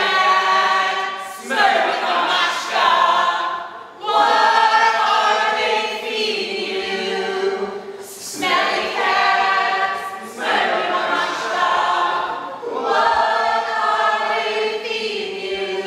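A group of voices singing together without instruments, in phrases a few seconds long with held notes and short breaths between them.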